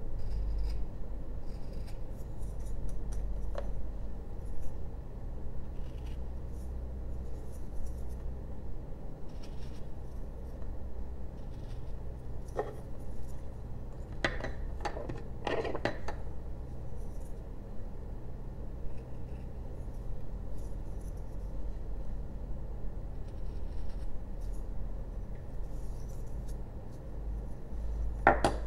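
Carving knife taking small paring cuts in basswood: faint scraping clicks over a steady low hum. About halfway through come a few louder sharp clicks and knocks, and one more near the end.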